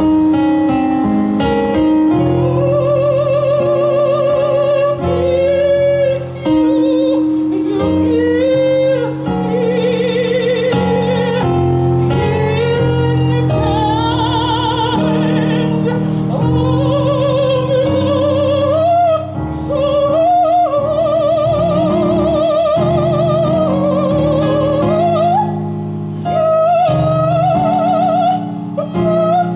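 Female classical singer singing operatically, holding high notes with a wide vibrato, over sustained chords from an electronic keyboard. Her line climbs higher in the second half.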